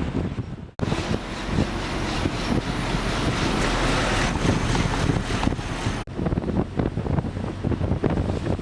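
Waterfall pouring as a steady rushing noise, with wind buffeting the microphone. The sound breaks off for an instant about a second in and again about six seconds in.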